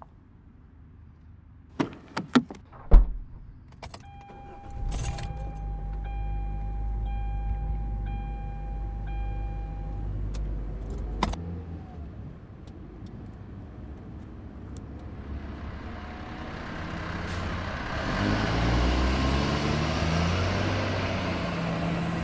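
Car sound effects: a jangle of keys and clicks, then a car engine starting and running while a dashboard warning chime beeps, and a door shutting. The car then pulls away, its road noise swelling and engine pitch rising as it speeds up.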